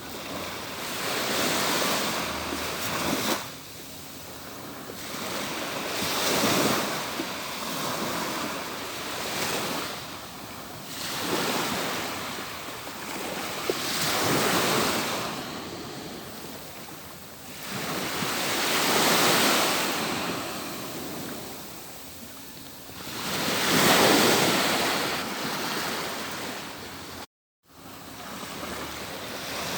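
Atlantic Ocean surf breaking and washing on a beach, in swells that rise and fall every few seconds. One brief gap of silence cuts in near the end.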